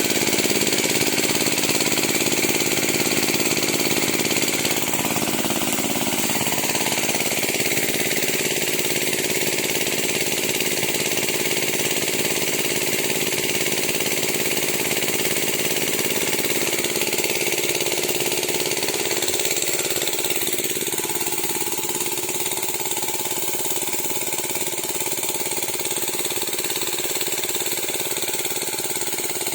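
Engine of a Sanchin MS30 power sprayer running steadily, driving the spray pump. Its note shifts slightly a few seconds in and it gets a little quieter past the middle.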